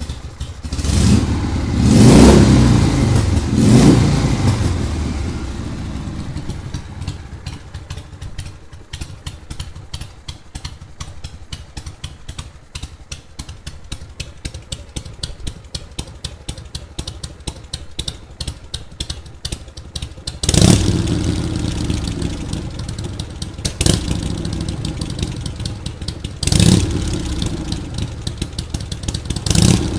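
1978 Harley-Davidson Shovelhead V-twin running: the throttle is blipped twice about two seconds in, then the engine idles with a steady, evenly spaced exhaust beat, and in the last ten seconds it is revved up briefly four more times.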